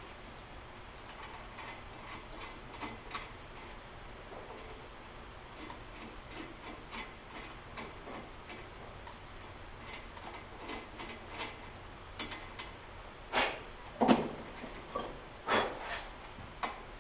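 Light, irregular clicks and ticks of hand tools being handled on metal parts, with a few louder knocks between about 13 and 16 seconds in.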